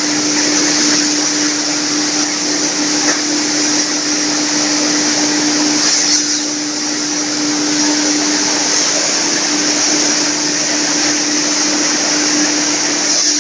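Wood hammer mill running with its blower fan and cyclone separator: a loud, steady rush of air and grinding noise over a constant hum.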